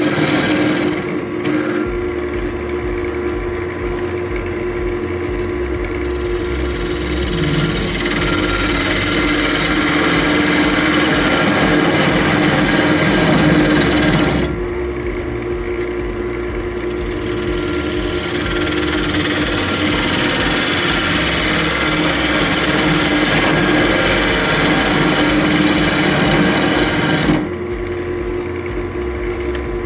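Wood lathe running with a steady hum while a turning tool cuts into a spinning spalted beech bowl, hollowing out its inside. The cut makes a rushing, scraping hiss in two long passes, each about eight to ten seconds, with a short lull between them and another near the end when the tool comes off the wood.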